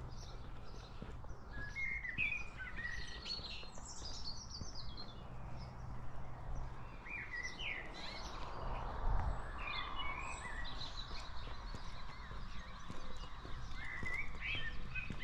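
Songbirds chirping and singing, many short calls one after another, over a faint steady low hum.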